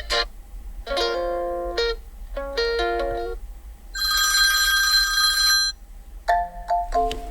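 Built-in ringtones of a Nubia RedMagic 7S smartphone played one after another as short melodic snippets, each cut off after a second or two. About four seconds in comes a brighter, steady ringing tone.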